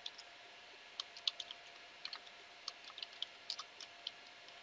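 Computer keyboard typing: a run of quick, irregular key clicks that starts about a second in and stops shortly before the end.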